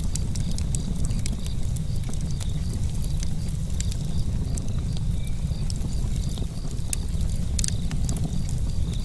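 Outdoor nature ambience: wind rumbling on the microphone, scattered sharp crackles, and a steady high chirping that pulses at an even rate.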